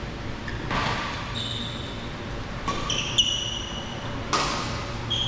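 Badminton rally: rackets striking the shuttlecock about four times, with court shoes squeaking briefly on the floor between the hits.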